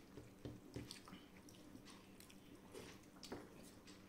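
Faint, soft wet clicks and squishes of someone eating by hand: fingers working rice and dal on a steel plate, and chewing, a few small sounds each second.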